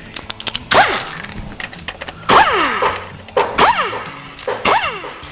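Power tool spinning out the 8 mm valve body bolts on a Ford 5R110W transmission in four short bursts about a second and a half apart, each one falling in pitch as it winds down, with light metallic clicks between them.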